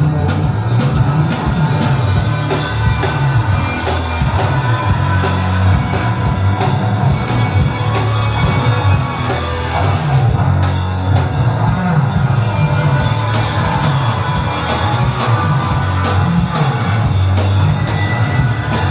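Live rock band playing, with a heavy bass line and steady drums.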